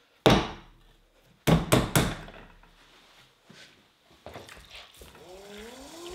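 A ball of clay slapped down onto a pottery wheel bat with a loud thud, then patted down with three quick slaps. Near the end the electric pottery wheel's motor starts up with a rising whine as the wheel spins up.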